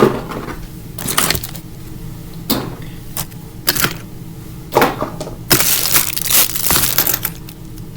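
Small plastic toys and packaging being handled and put into a container: a series of sharp knocks and clatters, about one every second or so, with a longer rustle around six seconds in.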